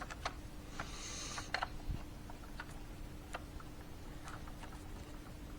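Light clicks and taps of small parts being handled, with a short rustle about a second in, over a faint steady hum.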